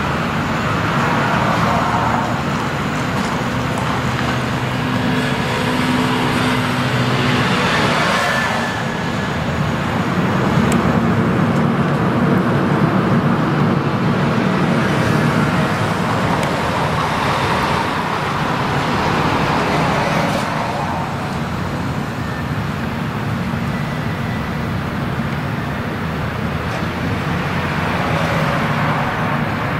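Diesel engine of a small sand-and-gravel carrier running under manoeuvring load, a steady low drone with a wash of noise. It grows louder for several seconds around the middle as the engine is worked hard and gives off black smoke.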